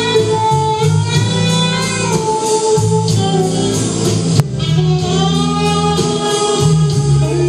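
Live band playing a song: a voice singing long held lines over a steady bass line and instruments. A brief sharp click and dip in level about four and a half seconds in.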